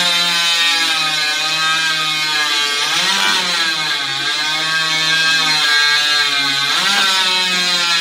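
Two chainsaws running flat out, cutting rounds off logs at the same time. The engine note holds steady, then wavers and dips around three to four seconds in and swings up sharply near seven seconds as the saws load and free up in the wood.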